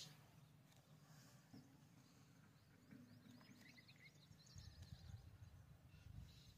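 Near silence, with faint, short high chirps of distant small birds from about two and a half seconds in and a faint low rumble in the second half.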